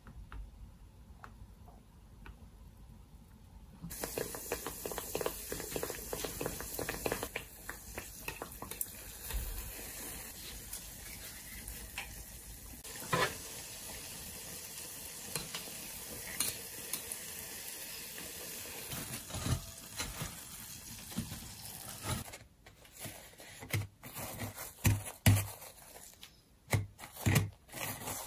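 Donuts deep-frying in hot vegetable oil in a stainless steel pot: a steady crackling sizzle sets in about four seconds in, with a sharp knock partway through. Near the end the sizzle stops, giving way to scattered knocks and rustles.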